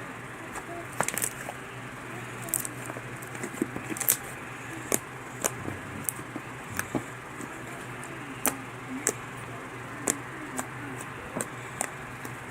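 Slime with glitter being kneaded and squeezed by hand, making irregular sharp pops and clicks, about one to two a second, over a steady low background hum.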